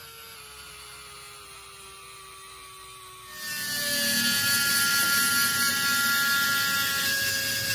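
Workshop machine sound: a faint falling whine like a machine slowing down, then a little over three seconds in a much louder machine starts up with a steady high whine over a grinding noise.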